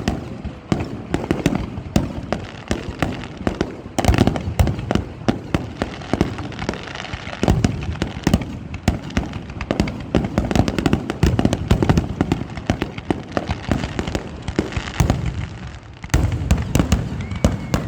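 Fireworks display: a rapid, continuous barrage of bangs and crackles, growing louder about four seconds in and again near the end.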